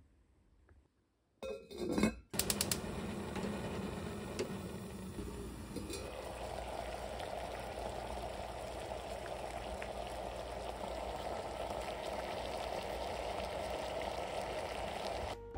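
A few metal clinks from the pot and its steamer rack, then water boiling steadily under the rack as a stuffed kabocha squash steams in an enamelled cast-iron pot. The bubbling hiss fills out a little about six seconds in.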